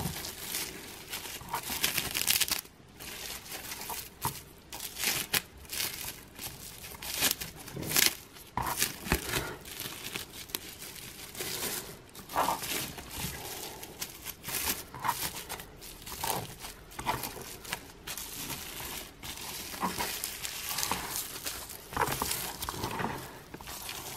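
Plastic cling film crinkling and crackling, irregular and continuous, as it is rolled and twisted tight around a log of shredded meat filling.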